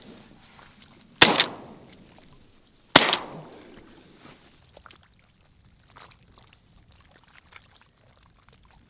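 Two shotgun shots at ducks in flight, about two seconds apart, each trailing off over about a second.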